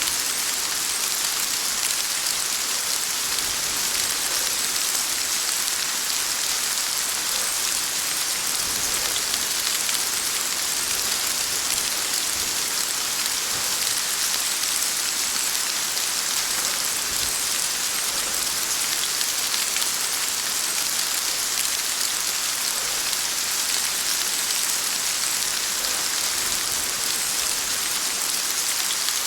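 Heavy rain falling steadily, an even hiss of many drops with no let-up and no clear thunderclap.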